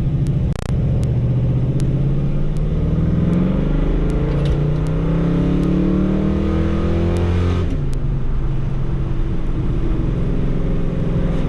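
Ford 351 Cleveland V8 in an XC Falcon accelerating. The engine note rises steadily for about seven seconds, then drops suddenly and settles into a steady run.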